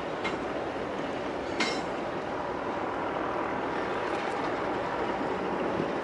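Distant BNSF freight train rumbling steadily as its diesel locomotives and cars roll along a steel bridge. A sharp metallic clink sounds about a second and a half in.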